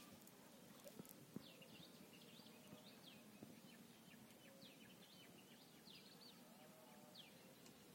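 Near silence: faint birds chirping, with a few soft ticks.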